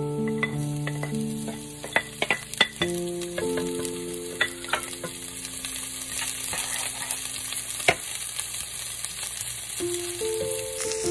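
Minced garlic and chopped onion sizzling in a frying pan, with a wooden spatula clacking and scraping against the pan as it stirs. There is a quick run of taps about two seconds in and a single sharp knock near eight seconds.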